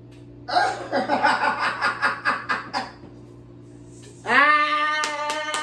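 People laughing in quick chuckling bursts, then about a second later a loud, long-held pitched sound that carries on through the end, with a few sharp clicks near the end.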